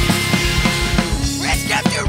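Hardcore punk song: a fast, steady kick drum under a dense wall of band sound, with a voice starting to sing or shout over it about a second and a half in.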